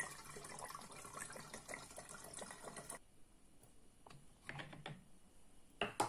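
Vodka poured through a plastic funnel into a 2-litre plastic bottle of cherry syrup, a steady splashing trickle that cuts off about three seconds in as the pour ends. A few light knocks follow as the funnel and bottle are handled.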